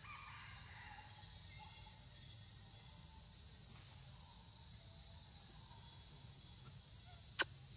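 Steady, high-pitched chorus of insects, shrilling without a break, with one short sharp click near the end.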